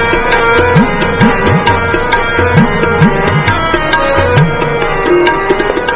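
Instrumental interlude of a Punjabi devotional song: tabla playing a lively pattern, its bass drum strokes swooping upward in pitch, over sustained held notes.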